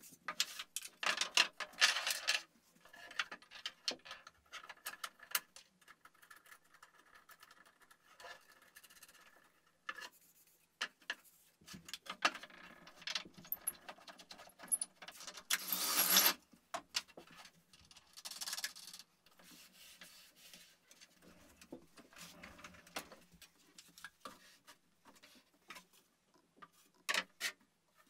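Wooden bracket parts being handled and fitted on a plywood workbench: scattered knocks, taps and wood rubbing on wood, with louder clatters about two seconds in and again around the middle.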